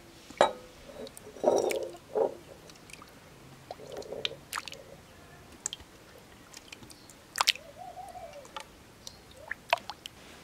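Wet squelching and sloshing of thick yogurt-and-herb dovğa mixture being poured from a glass bowl into a metal pot and stirred with a wooden spoon, with a few sharp knocks of spoon or bowl against the pot.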